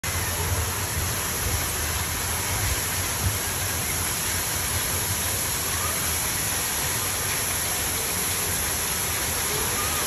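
Steady rushing noise of water-park ambience, with faint distant voices mixed in. There is a low rumble, heaviest in the first few seconds.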